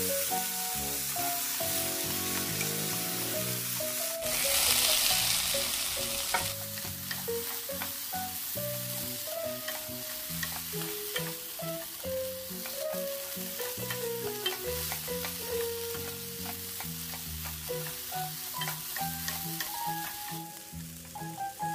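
Julienned potatoes and sliced onion sizzling as they are stir-fried in a nonstick frying pan, with small clicks of the wooden spoon and chopsticks against the pan. The sizzling surges louder about four seconds in for roughly two seconds, then settles back.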